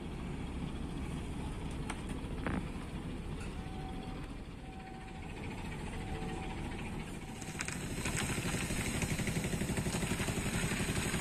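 Fishing boat's engine running steadily, growing louder and more pulsing about eight seconds in.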